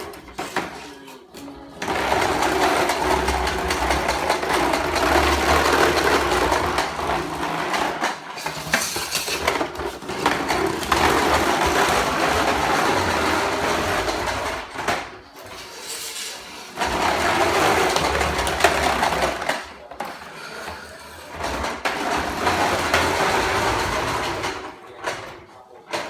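Toy lawnmower running in long spurts of several seconds with short breaks between them: a buzzing motor-like noise together with music.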